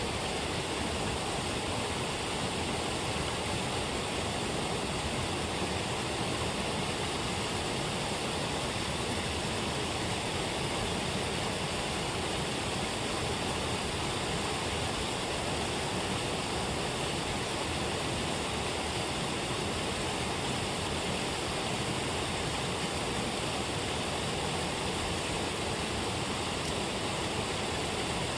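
Water pouring over a low weir and churning in the white-water rapids below: a steady, unbroken rush.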